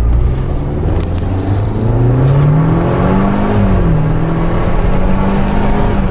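Audi A4's turbocharged four-cylinder engine, breathing through an APR Carbonio aftermarket intake, accelerating under throttle. Its pitch climbs for about three seconds, dips briefly, then holds steady.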